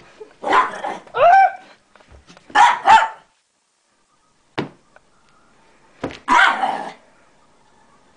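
Small Shih-poo dog barking in short bursts, a couple of barks in quick succession, then a pause of a few seconds before a last bark near the end.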